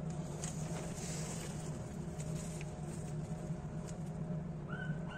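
Black plastic mushroom grow bag crinkling and rustling in scattered small ticks as hands press it and pull oyster mushrooms off, over a steady low hum. Two short squeaky chirps come near the end.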